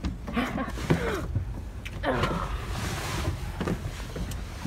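Car door creaking on its hinges as it is swung, with falling squeaks and a few clicks.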